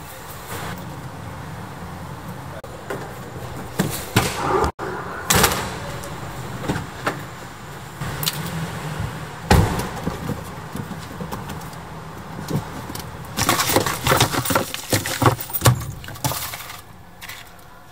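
An Audi SUV's tailgate and doors being handled: sharp knocks, then a heavy thud about nine and a half seconds in like a car door shutting, then a stretch of rustling and small clicks inside the car, all over a steady low hum.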